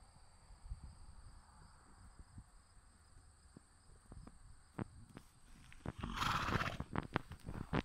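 A horse gives one snort, under a second long, about six seconds in. Before it, only faint scattered clicks.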